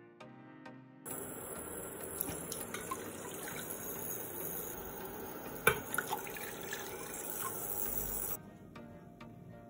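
Water pouring and splashing from a glass into a stainless steel saucepan. It starts about a second in and stops shortly before the end, with one sharp clink about halfway through.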